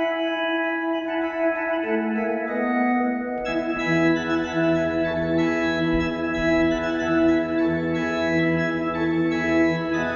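Two-manual electronic organ playing slow, sustained chords. About three and a half seconds in, a pedal bass line and brighter high stops come in and the sound fills out.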